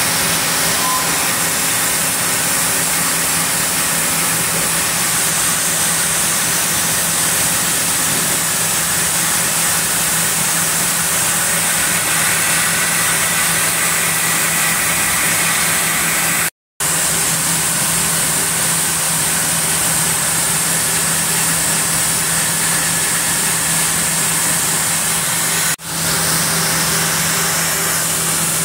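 Large sawmill log band saw and its carriage machinery running with a steady hum and hiss. The sound cuts out completely for a moment a little past halfway.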